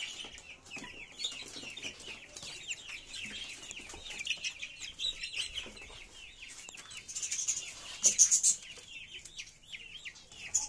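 A group of young chicks peeping continuously, many short falling cheeps overlapping, with a louder burst about eight seconds in.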